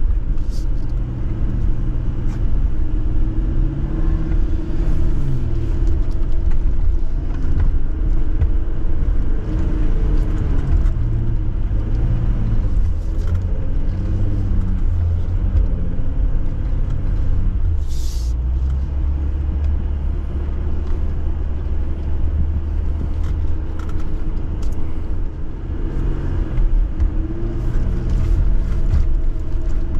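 Jeep engine and drivetrain running at low off-road speed, a heavy rumble whose pitch rises and falls several times as the throttle changes.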